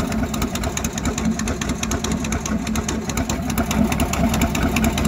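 An engine idling steadily with a fast, even chatter, a stock engine sound laid under the logo card.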